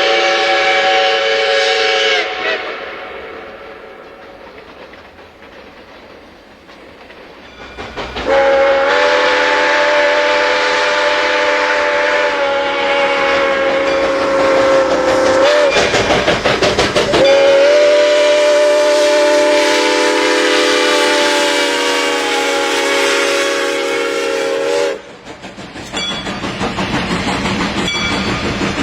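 A train sounding a chord-like horn: a short blast, then two long held blasts from about eight seconds in, split by a moment of rhythmic clatter. Near the end the horn stops and the train's wheels clatter rhythmically over the rail joints.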